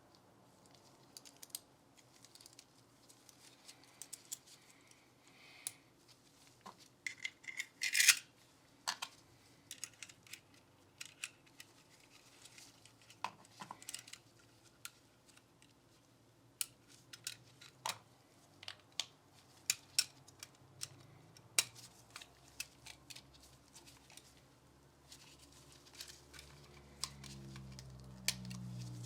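Small parts of a Glock pistol and cleaning tools being handled on a bench: scattered light clicks, taps and short scrapes, the loudest a rasping scrape about eight seconds in. A low hum builds near the end.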